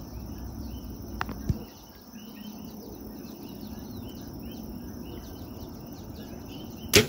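Repeated short chirping calls, two or three a second, over a steady outdoor hum, then near the end a single sharp, loud snap of a bow being shot at the wounded pig.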